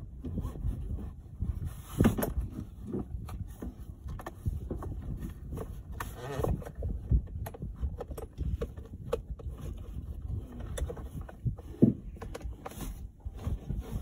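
Irregular knocks, thumps and scrapes of a plastic child car seat being handled and pushed into place on a vehicle's rear bench seat, with sharper clicks scattered through and a louder knock near the end.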